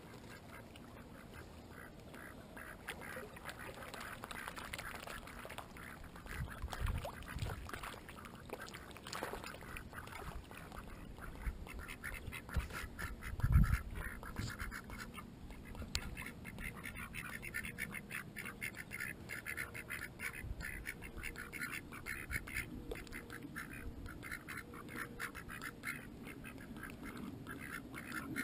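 Mallards and a white domestic duck quacking and chattering in quick repeated calls close to the microphone, busiest in the second half. Two low thumps break in, the louder one about halfway through.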